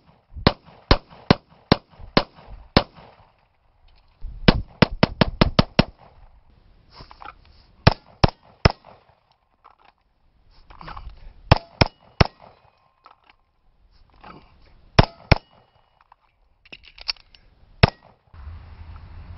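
Gunshots in quick strings: about six evenly spaced shots, then a fast run of about eight, then several pairs and triples. The later strings come from a 1911 pistol in .45 ACP, drawn from a belt holster and fired at steel targets.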